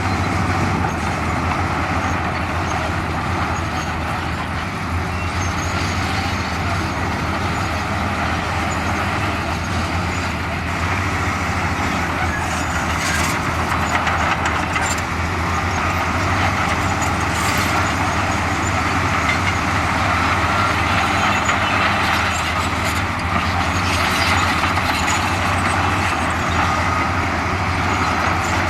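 Heavy diesel earthmoving machinery running steadily, with a constant low engine hum and scattered metallic clanks and rattles in the second half.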